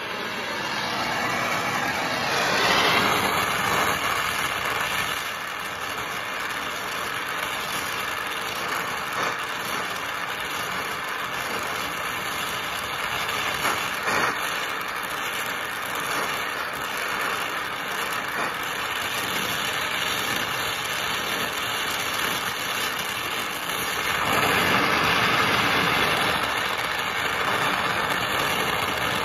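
Brazing torch flame burning with a steady, loud hiss as it heats a copper pipe joint. It swells about two seconds in and again near the end.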